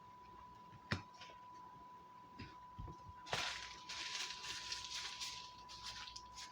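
A single click about a second in, then a few seconds of crinkly rustling of food wrapping being handled. A faint steady high tone hums underneath.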